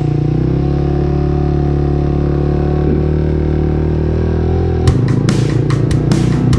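Motorcycle engine running at a steady speed while riding. About five seconds in, rock music with a hard, regular drum beat comes in over it.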